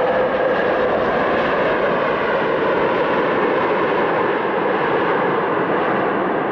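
Airliner engines running, heard as a loud, steady, dense noise with no pauses.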